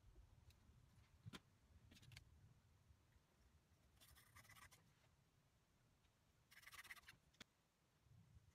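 Faint pencil strokes scratching along a wooden banjo-neck blank against a steel rule: two short strokes, one about four seconds in and another near seven seconds. There are a few light clicks and taps of tools on the bench in between.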